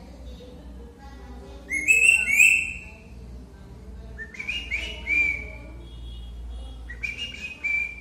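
A green parakeet whistles a mimicked phone message ringtone: three short phrases of quick rising notes, the first the loudest.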